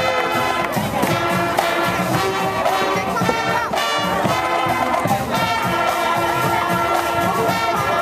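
Marching band playing: brass horns sustaining chords over a steady drum-line beat.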